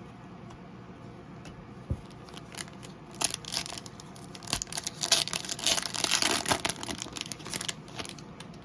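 A trading-card pack wrapper being torn open and crinkled, with a knock about two seconds in and a dense run of crackling from about three seconds in, loudest near the middle and dying away before the end.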